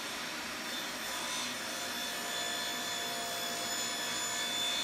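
Electric power tool motor running steadily with a whine, cutting spline slots into the corners of a mitred wooden frame.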